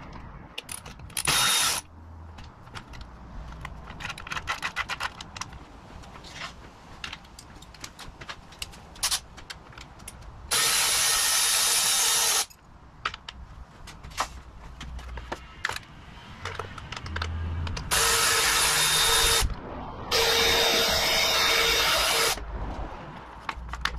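Cordless power screwdriver running in bursts, a short one about a second in and then three longer ones of about two seconds each, driving the handguard mounting bolts. Small clicks and rattles of hardware being handled fill the gaps between bursts.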